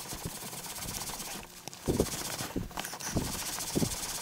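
Towel buffing dried shoe polish off an Acura NSX's leather armrest: a soft rubbing hiss, then from about halfway a run of rhythmic rubbing strokes, about one every half second.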